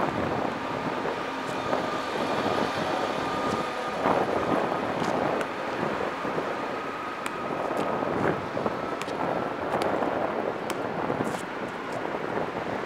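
Steady outdoor noise of traffic and wind buffeting the microphone, with a faint drawn-out whine that rises slightly in pitch and a few light knocks.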